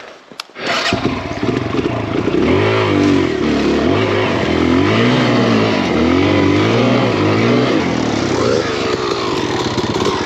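Kawasaki KLX dirt bike's single-cylinder four-stroke engine starting up about a second in, then revved up and down over and over, rising and falling about once a second.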